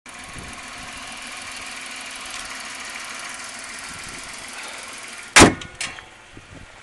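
Chrysler 3.3-litre V6 idling steadily under an open hood. About five and a half seconds in, the hood is slammed shut with one loud bang, then comes a smaller knock, and the engine is much fainter afterwards.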